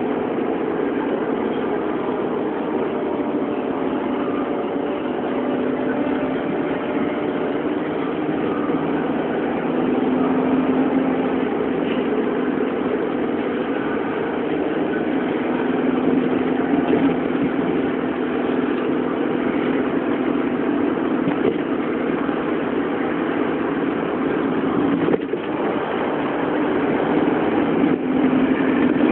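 Steady engine and road noise heard inside the cabin of a taxi driving along a city road.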